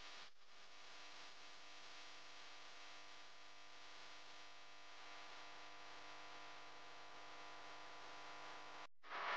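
Faint steady hiss with a low electrical hum: room tone, with no sound of the cooking heard. It drops out briefly twice, just after the start and near the end.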